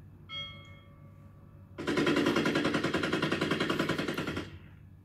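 Rapid automatic gunfire sound effect, a burst of evenly spaced shots lasting about two and a half seconds and stopping abruptly, played from a laptop; a brief steady tone sounds just before it.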